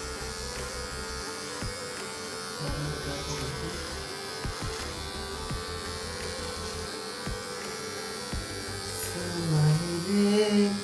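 Electric hair clippers buzzing steadily while cutting hair. A louder voice-like sound comes in near the end.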